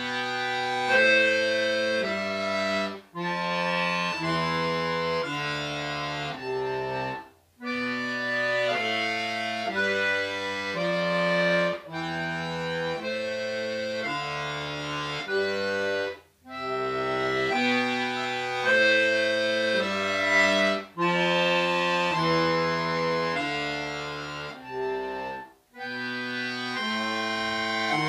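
Bayan (Russian chromatic button accordion) playing a slow piece in sustained chords and melody, with the sound breaking off briefly several times between phrases. The teacher hears the playing as not smooth enough, choppy in places.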